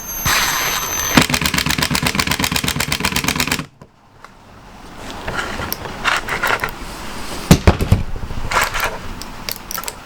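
A power screwdriver driving a screw: a steady whine for about a second, then a rapid rattle of about a dozen hits a second, cut off abruptly a few seconds in. After it come scattered knocks and handling noises.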